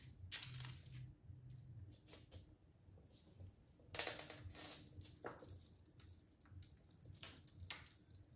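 Kittens' small paws pattering and scuffing on a hard floor and a cardboard scratcher: soft, scattered taps, with a louder scuff about four seconds in.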